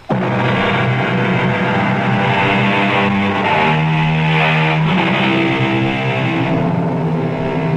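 Instrumental interlude music with held notes and chords that shift in pitch every second or so, starting abruptly.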